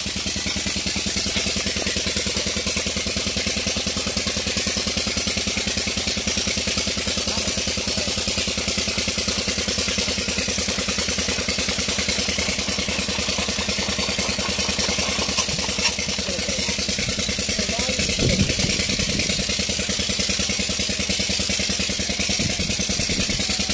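Old Petter stationary diesel engine running steadily, with a fast, even beat of firing strokes. A few voices are heard briefly in the second half.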